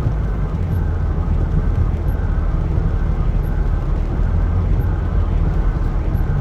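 Steady road and engine rumble heard inside a moving car's cabin, with a faint high blip repeating about every second and a half.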